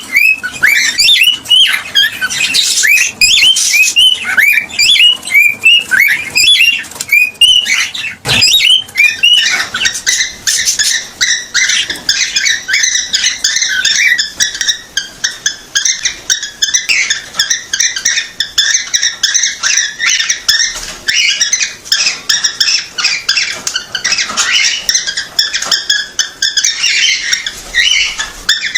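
Cockatiel singing: a run of repeated rising-and-falling whistled chirps, about two a second, then, after about eight seconds, a faster, denser chattering warble of short high notes.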